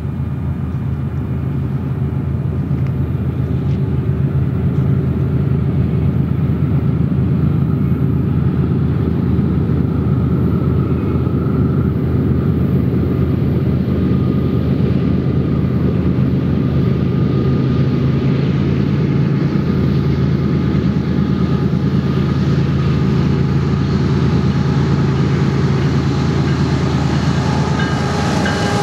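GE ES44AC diesel-electric locomotives, with GEVO V12 diesel engines, pulling an intermodal freight train. They make a steady low engine drone that grows slightly louder as they approach and pass. Near the end the rattle and wheel noise of the passing container and trailer cars comes in.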